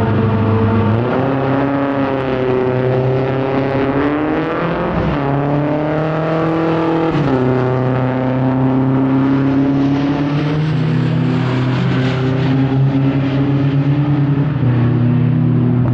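Drag-racing sportbike engines: the engine note rises and falls, then steps down in pitch several times as the bike is shifted up through the gears on its run down the strip.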